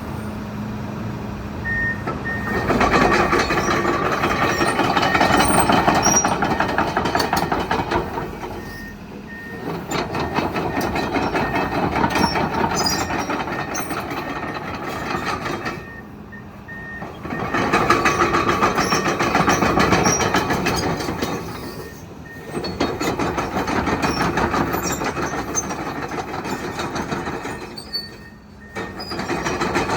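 Komatsu PC200-11 hydraulic excavator being worked through its controls: the diesel engine and hydraulics rise under load in four long surges of several seconds each, easing off between them. An intermittent electronic warning beep sounds through it.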